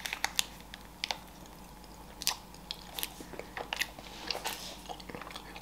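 Close-up mouth sounds of biting into and chewing a chocolate-glazed curd cheese bar, with scattered short clicks and crackles.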